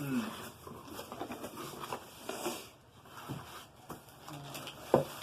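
Light handling noises from unpacking a cordless stick vacuum's parts and paperwork: scattered rustles and small clicks, with one sharp knock about five seconds in.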